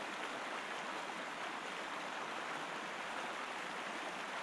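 Steady soft hiss of lapping lake water, even throughout, with no distinct paddle splashes standing out.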